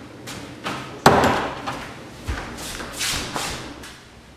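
Footsteps on a hard floor mixed with several sharp knocks and thumps at uneven intervals, the loudest about a second in.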